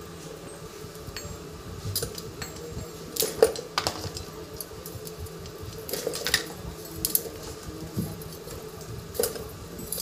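Scattered light clicks and metallic clinks from hands handling a table fan's motor end cap and its wires while the wires are disconnected.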